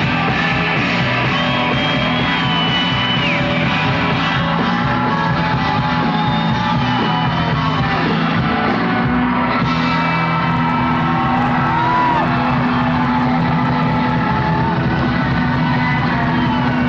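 Live band playing country rock on electric guitar, drums and keyboard, recorded from the audience.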